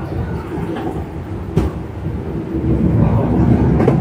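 A deep rumble that grows louder about halfway through, with a single sharp click about a second and a half in.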